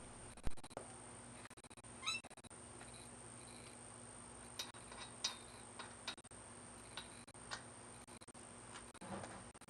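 Faint scattered clicks and light knocks, with a short squeak about two seconds in, over a steady electrical hum and high whine.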